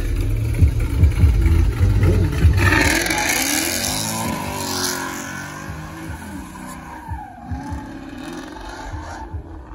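Car engine running hard, then from about three seconds in a long, wavering tire squeal as the rear tires spin in a burnout, fading near the end.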